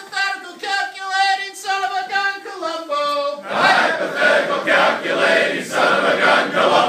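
A man sings a solo line of a campfire song, its pitch stepping down, then about three and a half seconds in a group of men answer with a loud rhythmic shouted chant, in pulses about twice a second.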